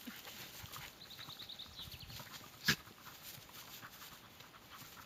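Two small dogs tussling in the grass: faint rustling and scuffling of bodies and paws. A short run of rapid high chirps about a second in, and one sharp click about halfway through.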